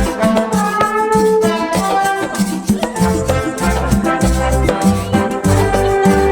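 Upbeat Latin-style background music with a steady beat, shaker-like percussion and melodic instruments.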